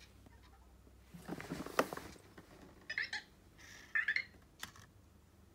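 Anki Vector robots making two short electronic chirps about a second apart, after a second-long rustling burst with clicks from their moving parts.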